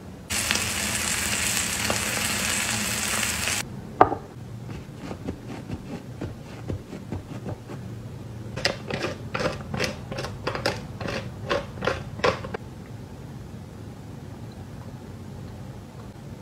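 Steak sizzling on a hot cast-iron griddle for the first few seconds, cut off abruptly. A single sharp knock follows, and later a run of about a dozen crunchy strokes, about three a second, as a raw steak is seasoned.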